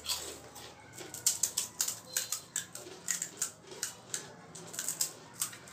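Crisp fried pani puri shells being cracked open with fingertips by several hands at once: a quick, irregular run of sharp crackles and clicks.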